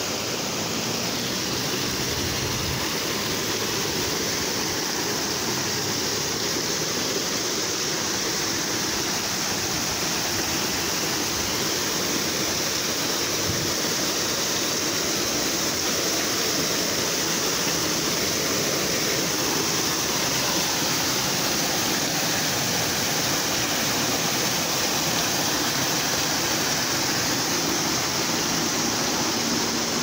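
Steady rushing of a shallow rocky river spilling over small waterfalls and rapids.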